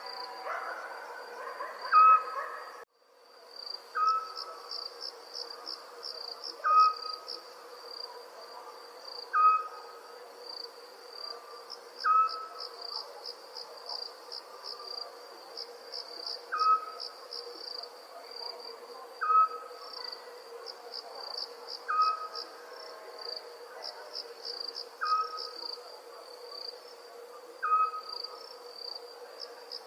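Night ambience of crickets chirping in a steady, pulsing high trill. Over it, a short whistled call repeats about every two and a half to three seconds. The whole sound drops out briefly about three seconds in.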